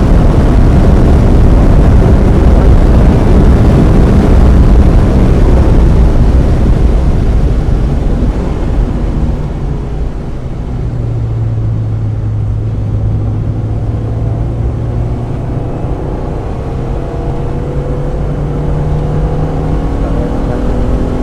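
1995 Mazda Miata's 1.8-litre four-cylinder engine heard from inside the car: loud under power at first, easing off about eight seconds in to a steady low note, then rising in pitch near the end as it accelerates again.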